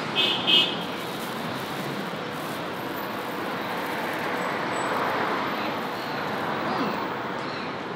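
Steady city street traffic noise, with two short, sharp high-pitched sounds close together just after the start.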